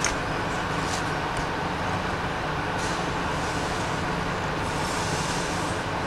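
A vehicle engine running steadily, with a few faint clicks near the start.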